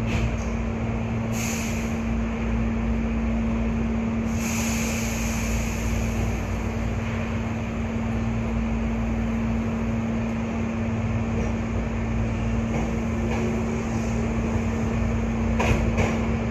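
Hankyu 8300 series electric train standing at a station: the steady hum of its on-board equipment with a constant low tone, two short hisses about one and four seconds in, and a few clicks and knocks near the end.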